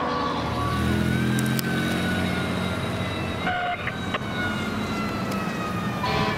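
Fire truck siren wailing, its pitch rising about a second in and then slowly falling, over the low rumble of the truck's engine. A short extra blast of tone comes about three and a half seconds in.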